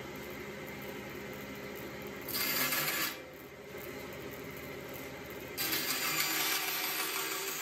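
Bandsaw running steadily, with a short stretch of blade cutting wood about two seconds in. From about five and a half seconds the blade cuts continuously as a thin walnut strip is fed through it.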